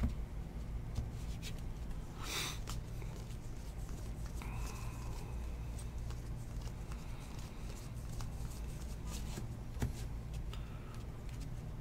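Baseball trading cards being handled, slid off a stack and flipped through in the hands. There is a brief rustle about two seconds in and a light tap near the end as a card is set down on the mat, over a steady low hum.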